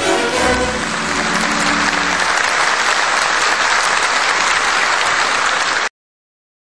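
A crowd applauding, loud and steady, over the tail of orchestral music that fades out in the first two seconds; the applause cuts off abruptly near the end.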